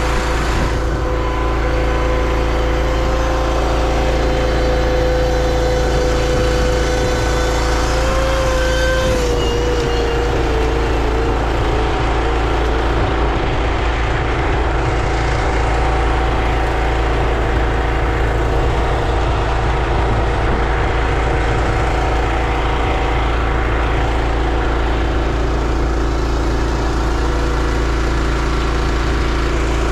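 Pressure washer running steadily with a constant engine-like hum; a steady tone in it wavers and breaks up about nine seconds in.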